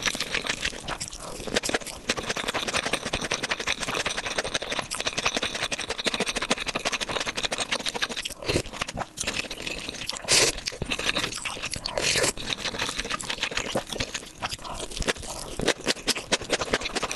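Close-miked eating sounds: a person chewing and crunching food with wet mouth clicks, with two louder crunches past the middle.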